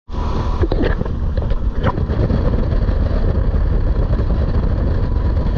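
Motorboat underway: engine running steadily under a loud rush of wind and water, with a few knocks in the first two seconds.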